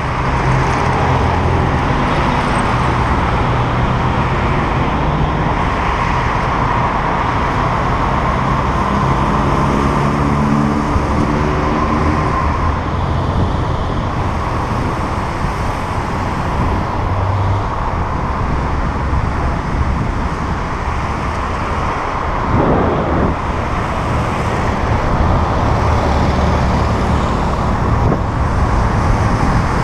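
Road traffic heard from a moving bicycle: engines of passing cars and buses running steadily over continuous road noise, with one vehicle passing close about three-quarters of the way through.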